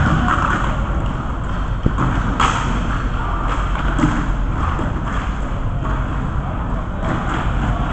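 Inline hockey game ambience in an arena: a steady din with distant players' voices and a few sharp knocks, about two seconds in, again half a second later, and at four seconds.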